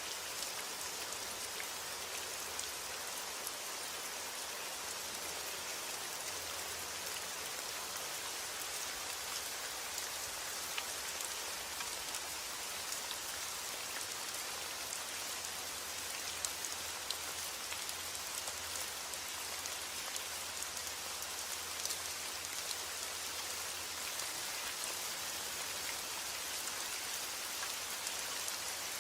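Steady heavy rain falling on a roof: a constant hiss with scattered sharp ticks of single drops.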